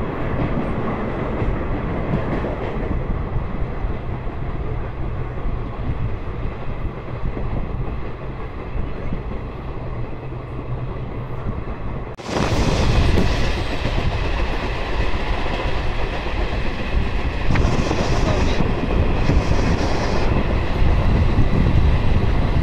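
Track sound of the Gondwana Express's coaches running through at speed without stopping, heard from an open coach door: a steady rush of wheels on rail. About halfway through it turns suddenly louder and harsher and stays that way.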